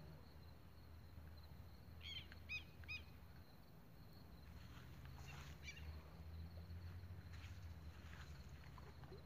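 A faint, steady low background rumble, with three short bird chirps a fraction of a second apart about two seconds in.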